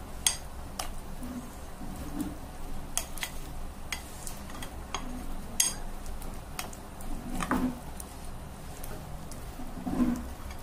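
A spoon stirring thick, battered chicken marinade in a glass bowl, clinking against the glass at irregular intervals, with a couple of duller knocks.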